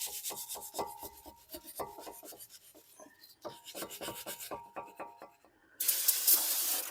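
Hand wire brush scrubbing rust off a car's front wheel hub in quick back-and-forth strokes. After a short pause near the end, a loud hiss of an aerosol spray.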